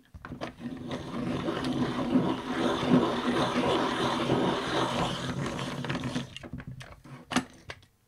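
Pencil sharpener grinding a brand-new warm grey 6 coloured pencil to a sharp point. The steady grinding stops about six seconds in and is followed by a few clicks, one louder than the rest.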